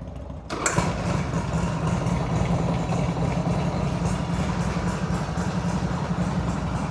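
Harley-Davidson Sportster V-twin starting about half a second in and then idling steadily through a new Cobra El Diablo 2-into-1 exhaust as it warms up.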